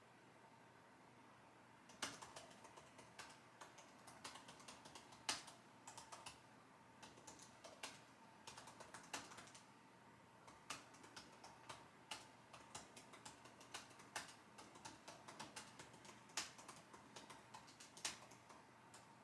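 Typing on a computer keyboard: quick, irregular keystrokes starting about two seconds in, with a few heavier strokes among them and a brief pause midway.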